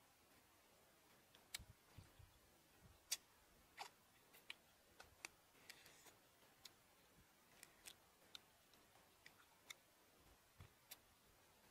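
Close-up crunching and clicking of fried frog being bitten and chewed, small bones cracking between the teeth. The short, sharp clicks come at irregular intervals, a few every second, with the loudest crack about three seconds in.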